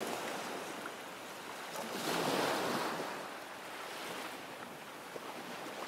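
Small surf washing in over shallow water on a sandy beach, swelling about two seconds in and easing off a second later.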